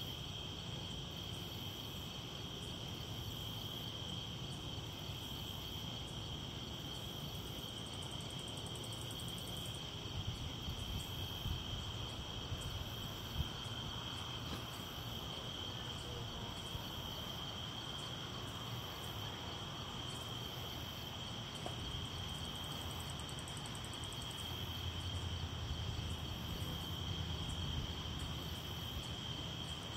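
Night insects: crickets chirring in a steady high trill, with a higher-pitched call pulsing about every two seconds. Under it runs a low rumble that swells near the end.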